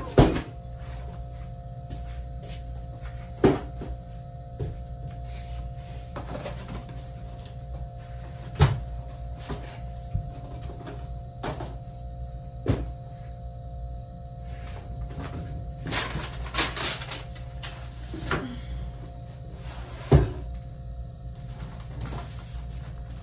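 Cardboard boxes being handled and set down, with a sharp knock every few seconds and a short stretch of scraping and rustling about two thirds of the way through.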